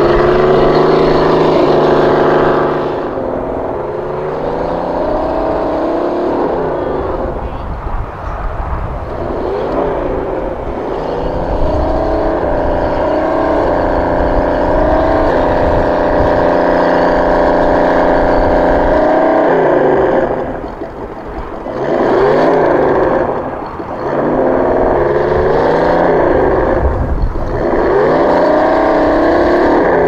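Tamiya Toyota Tundra High-Lift RC truck's electric motor and gearbox whining. The pitch holds steady for stretches and then rises and falls with the throttle, easing off briefly twice about two-thirds of the way through.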